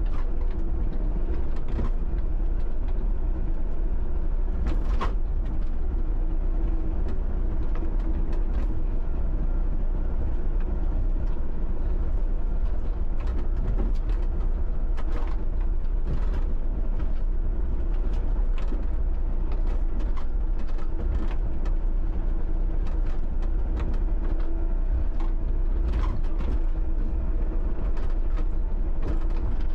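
John Deere 60D mini excavator's diesel engine running steadily under working load, with scattered knocks and clunks of the bucket and arm digging at stumps.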